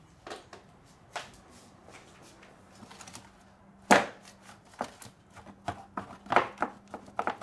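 Hands tugging at the plastic engine cover of a Toyota 3.3 V6: scattered plastic clicks and knocks, with one loud sharp snap about four seconds in and a run of smaller clicks after it as the cover is worked loose from its mounts.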